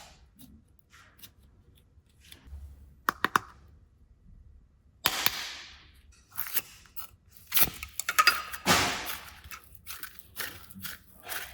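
Handling sounds: a quick cluster of sharp clicks, then a sudden loud crack about five seconds in that fades out, followed by irregular crackling and rustling.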